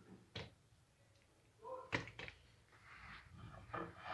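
A few faint, short knocks and clicks of kitchen handling, two of them sharper, with a soft murmur of voice.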